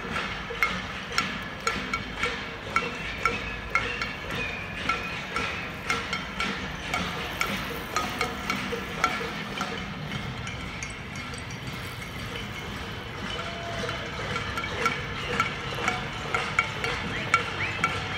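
Metal pots being banged in a steady beat, about two ringing clangs a second, over street noise: a cacerolazo, the pot-banging protest.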